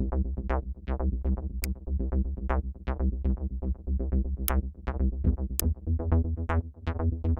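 Background electronic music with a steady beat, a low bass line and quick, evenly spaced plucked synth notes.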